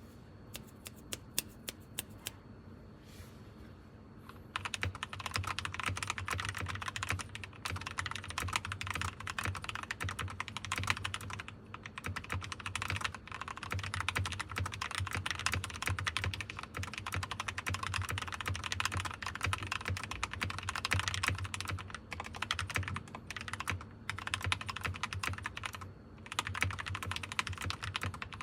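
Keychron K2 V2 mechanical keyboard with lubed Gateron Brown switches, prelubed stabilizers, foam in the case and 8008-clone keycaps being typed on. A few single key presses come first; after about four seconds it turns into fast, steady typing with a few brief pauses.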